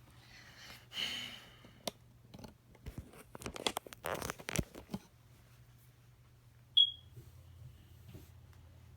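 Handling of fabric and pens while drawing: a rustle, then a run of small clicks and taps, followed by one short, high beep.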